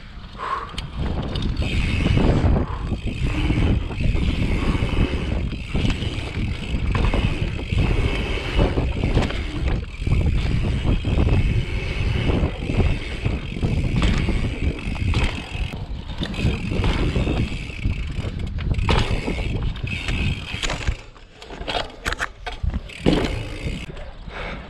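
Mountain bike being ridden over rough ground: a heavy low rumble with rattles and knocks throughout, easing briefly about three-quarters of the way through.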